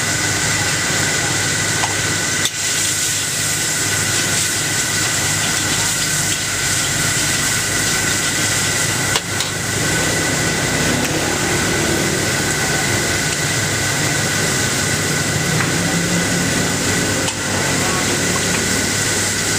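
Gas wok burner running at full flame, a steady rushing noise with a faint high whistle, under a wok of shrimp frying in oil.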